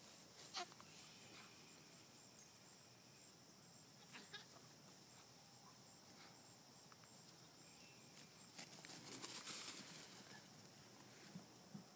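Near silence: faint outdoor ambience with a few soft clicks, and a short stretch of rustling handling noise about three quarters of the way in.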